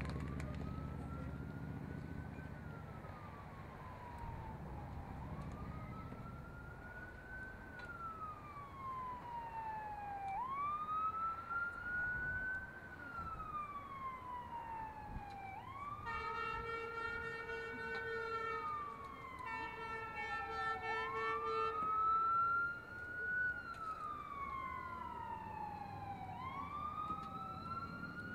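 A siren wailing in slow sweeps, each rising quickly and falling slowly, repeating about every five seconds. A steady horn-like tone sounds over it for several seconds near the middle.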